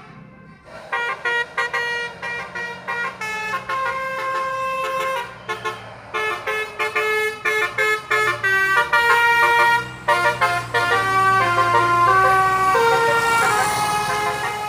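A bus's basuri horn, a multi-tone electric horn, plays a telolet melody of stepped notes starting about a second in. Under it, the bus's diesel engine rumble grows stronger in the second half as the bus passes.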